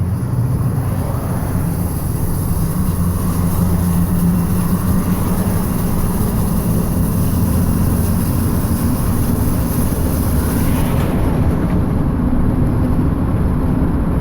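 2012 Ford F-150 EcoBoost's twin-turbo V6 running with a steady low drone.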